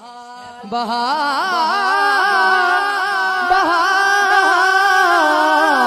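A man singing a naat through the microphone and PA. After a short breath he holds one long, wavering, ornamented note on a drawn-out syllable, with no words articulated.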